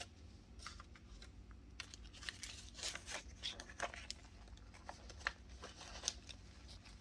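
Paper banknotes rustling and flicking as a stack of bills is shuffled and counted by hand, in faint irregular crackles.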